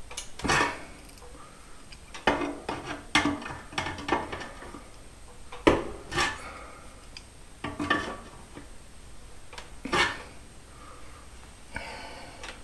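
Irregular metallic clinks and clanks, one every second or two, of a hand tool knocking and scraping against the steel hinge of a folding attic ladder while the bolt holes are worked into line.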